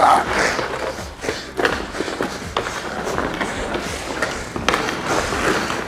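Hockey skate blades scraping and carving the rink surface through repeated crossover strides, with a few sharp clicks of the stick handling the puck.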